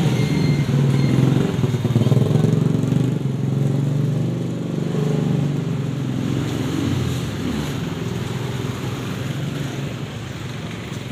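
Street traffic: a motorcycle engine running close by among passing cars, loudest in the first few seconds and slowly fading.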